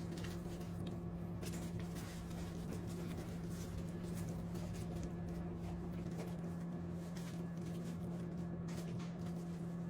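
Steady low hum with one faint overtone, with a few soft scattered ticks from a knife slicing raw tuna on a cutting board.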